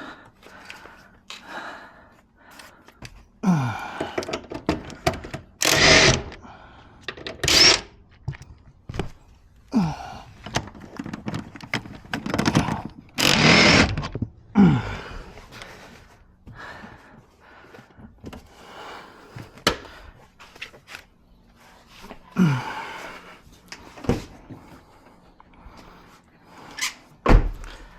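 Irregular thunks, knocks and rustling from hands pulling apart a Subaru XV's interior: wiring harness, connectors and plastic trim being handled and tugged loose, with a few short creaks that slide down in pitch.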